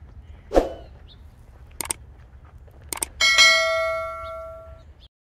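A knock and a few sharp clicks, then one strike of a bell-like piece of metal that rings on with several clear tones and fades over about a second and a half before cutting off.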